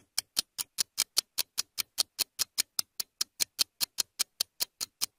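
A quiz countdown timer's ticking sound effect: sharp, even ticks at about five a second, counting down the answer time.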